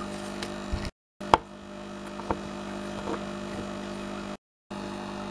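Steady electrical hum of room tone with a few faint knocks of plastic Littlest Pet Shop figurines being handled and set down on a tabletop. The sound drops out twice for a moment.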